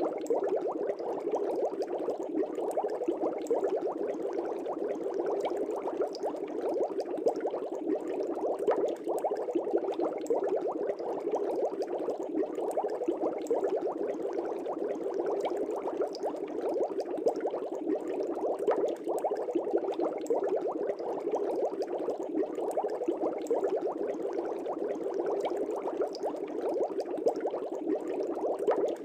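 Air bubbles rising steadily in a fish tank: continuous dense bubbling made of many small rapid pops.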